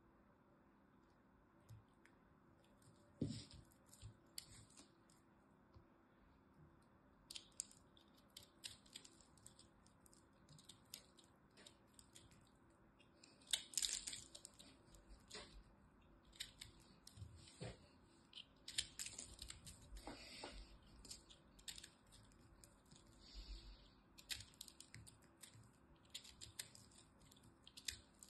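A small snap-off blade scraping and cutting into a ball of dry, crunchy soap: quiet, irregular crunchy scrapes and crackles, with louder cuts about 3, 14 and 20 seconds in.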